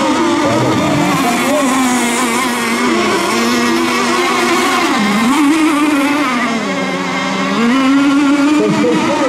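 Several radio-controlled racing boats running their engines at high revs. The pitch drops and climbs back several times, most deeply about five and seven seconds in.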